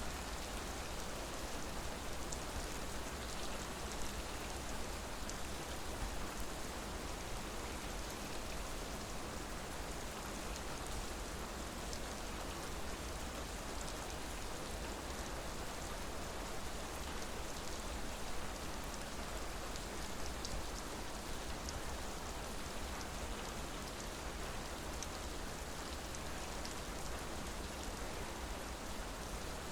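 Steady rain falling, an even hiss with scattered individual drops ticking here and there.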